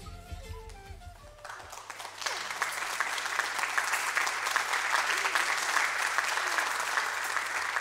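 The last notes of a song fade out, then a theatre audience applauds, starting about two seconds in and dying away near the end.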